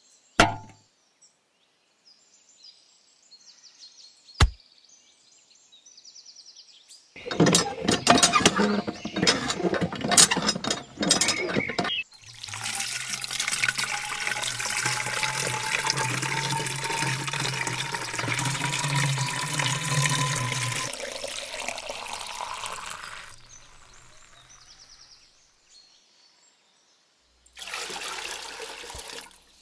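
A thin stream of water running from a miniature hand pump's spout and splashing into a small plastic pool. The flow is steady for about ten seconds, with a tone rising slowly as the pool fills. It is preceded by a few seconds of rapid clattering as the pump is worked. Near the end, a short pour from a small plastic cup splashes into the pool.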